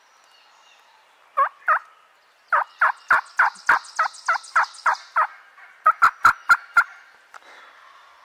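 Turkey yelping in a run of separate notes. Two come about a second and a half in, then a steady series of about ten at three or four a second, then a final run of five sharper yelps.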